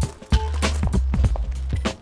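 Background music with quick repeated notes over a steady low bass.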